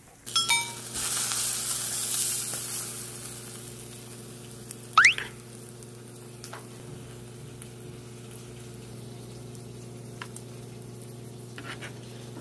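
Pork belly sizzling on a grill pan, loudest in the first few seconds and then settling to a steady lower sizzle over a steady low hum. A short rising whistle-like sound comes about five seconds in.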